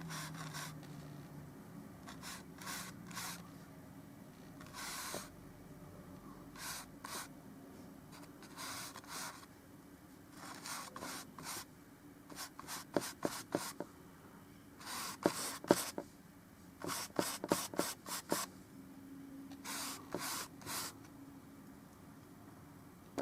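Paintbrush applying oil paint to the painting surface: short scratchy strokes in clusters, with a run of sharper ticks between about twelve and eighteen seconds in.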